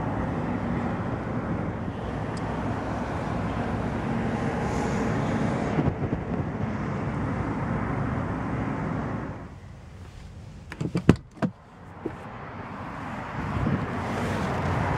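Steady outdoor rushing noise that falls away a little past the middle, where a few sharp clicks and knocks sound, then builds again.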